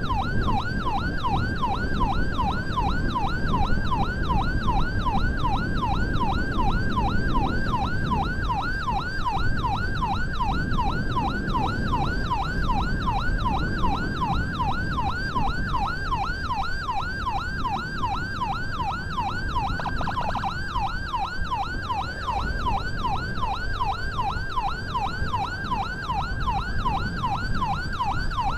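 Ambulance siren on the yelp setting: a fast, even up-and-down sweep repeating about twice a second, over steady road and engine noise.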